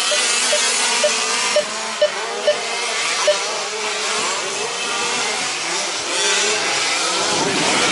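Several 1/5-scale RC trucks racing, their small engines running and revving together in a steady mechanical din. A few short, sharp blips stand out during the first few seconds.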